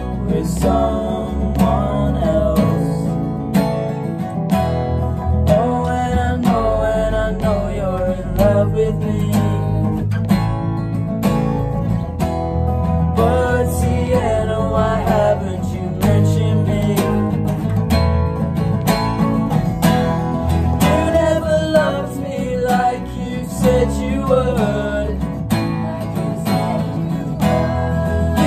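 Two steel-string acoustic guitars strumming a song over an electric bass guitar, with a voice singing along at times.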